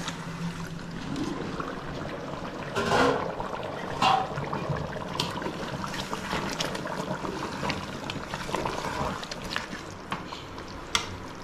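Chicken simmering in a large aluminium pot of thin masala gravy, bubbling steadily, with a perforated metal ladle stirring through it and clinking against the pot a few times. The chicken is nearly cooked through at this stage, before ghee, mint and coriander go in.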